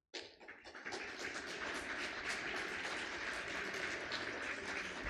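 Audience applauding, a dense, even patter of many hands clapping at a steady level that fades out near the end.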